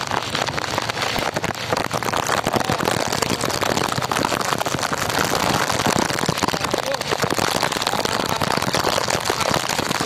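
Heavy downpour, with raindrops striking the phone's microphone as a dense, steady crackle of small hits over a rushing hiss.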